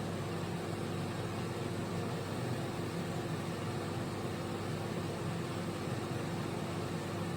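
Candy Smart CMG2071DS microwave oven running: a steady, unchanging hum with one constant tone from the magnetron, cooling fan and turntable motor.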